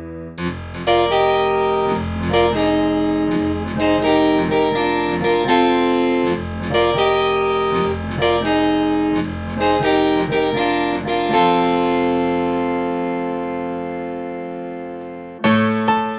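Strauss Rottman Sonata digital piano played in one of its built-in voices. Chords are struck about once a second, then a long held chord dies away over some four seconds, and a new chord comes in near the end.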